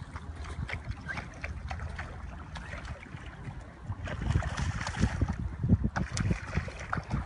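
River water running past a gravel shore, with wind rumbling on the microphone and scattered small clicks and knocks; it grows louder about four seconds in.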